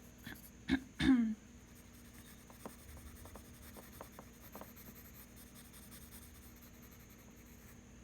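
A person briefly clearing their throat about a second in, then faint scratchy strokes of a drawing tool on sketchbook paper.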